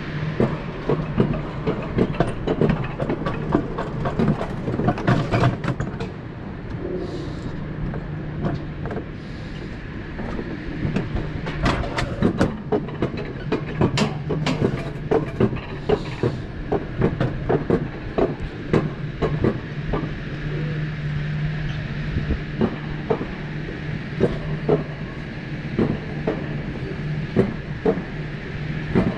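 Mountain coaster sled running along its steel rail track: a steady rumble from the wheels with a constant low hum, broken by frequent irregular clacks and knocks.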